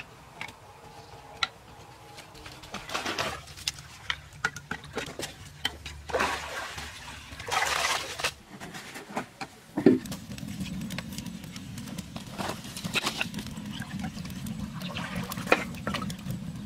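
Water splashing and sloshing in a shallow pool, with sharp knocks and snaps of dry sticks being handled. From about ten seconds in, a wood fire burns in a clay fire box with a steady low rush and scattered crackles.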